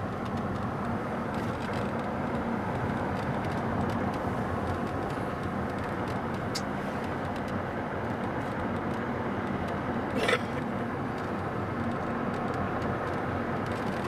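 Car driving along a paved road, heard from inside the cabin: steady engine hum and tyre and road noise, with one short sharp knock about ten seconds in.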